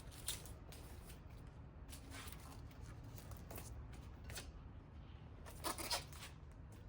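Handlebar tape and its peeled backing paper being handled and wrapped around a drop bar: faint rustling and crinkling with scattered light crackles, a few more together near the end.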